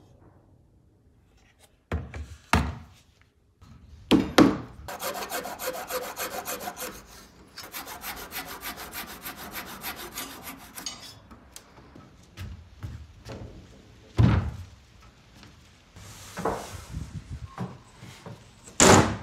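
Wooden parts knocking as they are handled, then about six seconds of fast, even hand-saw strokes as a flush-cut saw trims a protruding wooden dowel flush with the cabinet side. A few more wooden knocks and thumps near the end.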